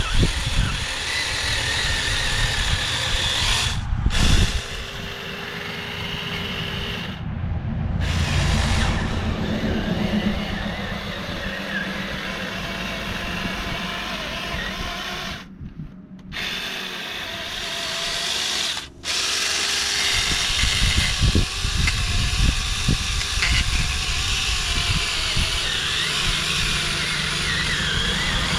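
Small chainsaw running as it cuts into a pumpkin, its motor speeding up and easing off, with a few brief drops in the sound, the deepest about halfway through.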